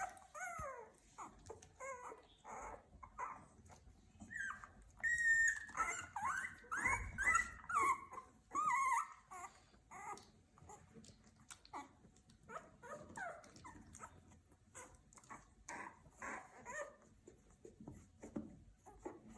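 Two-week-old puppies squeaking and whimpering: a run of short, high squeals, many falling in pitch, busiest and loudest between about five and nine seconds in, with softer squeaks before and after.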